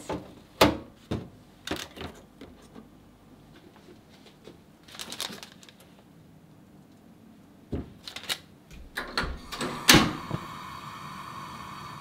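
Bamboo steamer lined with parchment paper being handled on a steel stovetop: scattered light knocks and paper rustling. About ten seconds in, a sharp click is followed by a steady hiss.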